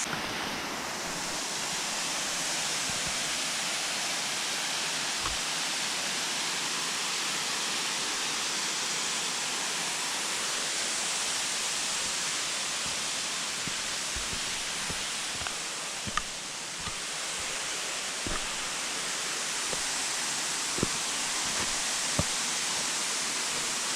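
Waterfall: a steady, even rush of falling water, with a few faint ticks and knocks here and there.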